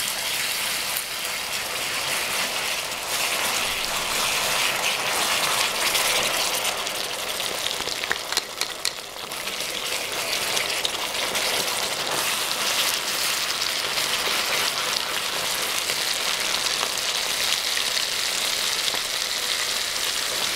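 Hot caramel of melted sugar and butter sizzling and bubbling in a pan as cream is poured in and stirred, foaming up. A few clicks come about eight to nine seconds in.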